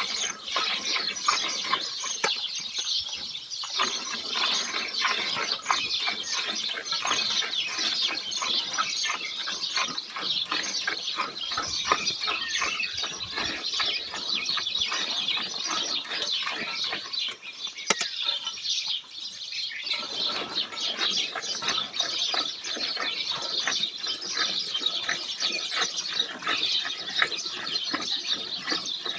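Many birds chirping and chattering without a break, mixed with the squirting of milk jets into a steel pail as a cow is milked by hand. The lower squirting sound pauses briefly twice.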